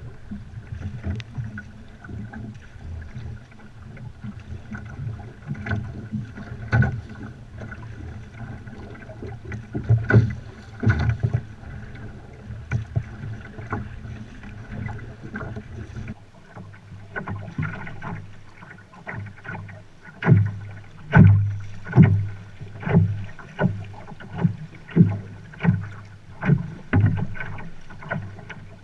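Canoe being paddled: a paddle dipping and pulling through calm lake water, with splashes and drips on each stroke. In the second half the strokes come in a steady rhythm a little faster than once a second, and the background changes abruptly about halfway through.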